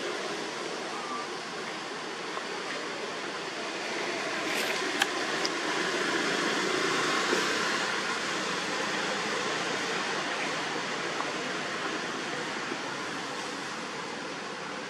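A steady outdoor rushing noise, swelling a little in the middle, with a few faint clicks near the middle.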